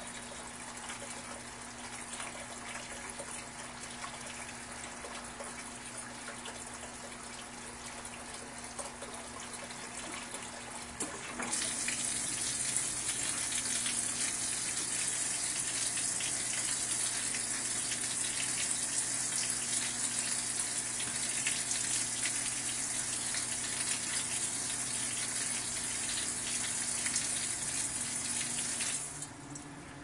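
Water spraying into the drum of a Brastemp Vantage top-load washing machine during its fill, before the wash starts. The rush of water grows much louder about a third of the way in and cuts off shortly before the end, over a steady low machine hum.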